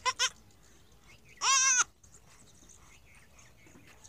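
Newborn goat kid bleating: two short bleats right at the start, then about a second and a half in one longer bleat with a quavering pitch.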